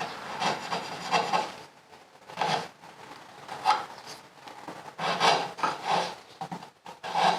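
Hand tool cutting into a hard mahogany-type wood: a series of short, irregular rasping strokes, with a brief pause about two seconds in.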